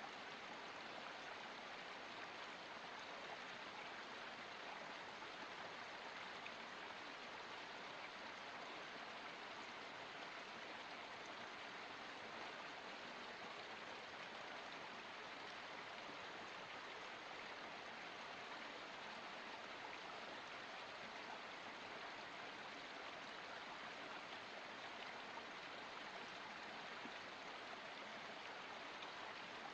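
A small forest stream running steadily: an even, unbroken rush of flowing water.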